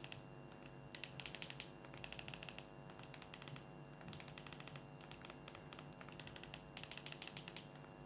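Faint key or button clicks in quick bursts of several presses, with short pauses between bursts, over a steady low hum: the key-by-key steps of moving across an on-screen keyboard to enter a web address.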